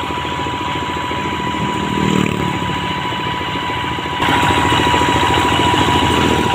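Two-wheel hand tractor's single-cylinder diesel engine running steadily under way, a fast even beat of firing pulses. It becomes suddenly louder about four seconds in.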